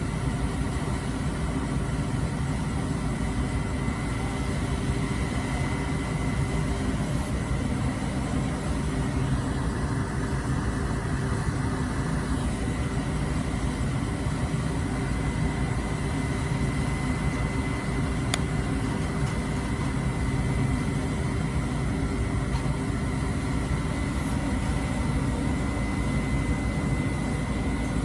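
The crane truck's engine running steadily as its boom lifts drywall to the second-story roof, with a faint high whine over it.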